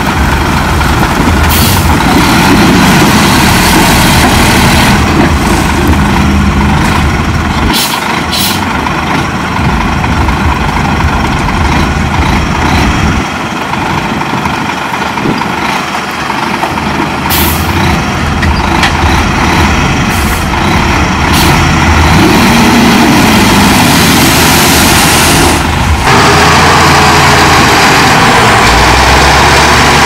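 Heavy diesel earthmoving machinery running continuously, its engine note rising and falling under load, with a few short sharp noises. It gets louder and steadier near the end.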